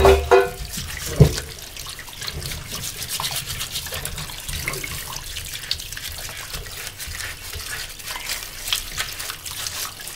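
Tap water running into a stainless steel sink while hands scrub a singed goat head, with wet rubbing and splashing as the burnt, peeling skin is washed off. A sharp knock comes about a second in.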